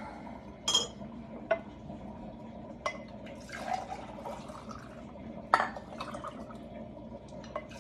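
A solution being mixed in glassware: liquid sloshing, with a spoon clinking against the glass a few times, the sharpest clink about five and a half seconds in.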